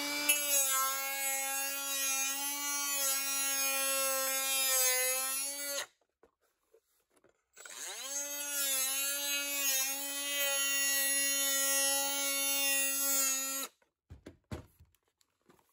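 Small electric power-tool motor whining as it spins up and runs at a steady speed, twice, each run about six seconds long and each cut off abruptly.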